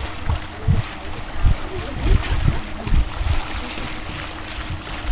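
Water splashing and sloshing around legs wading through shallow water, with irregular low rumbles of wind buffeting the microphone.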